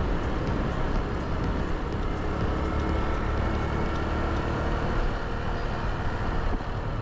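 Honda Super Cub 110 (JA59) on the move, its air-cooled single-cylinder four-stroke engine running steadily under a dense, even rumble of riding noise.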